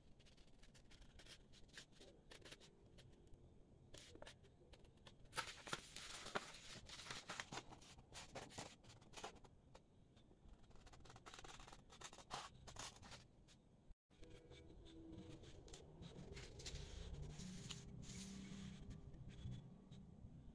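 Faint scissors snipping through paper, with the sheet rustling as it is handled; the sound drops out for an instant partway through.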